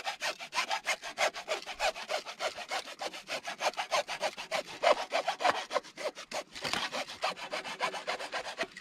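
A hand tool working in quick, even rasping strokes, about seven a second, on the waterline fittings.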